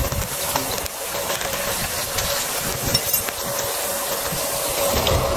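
Steady hissing noise with a faint continuous hum under it and a few soft knocks.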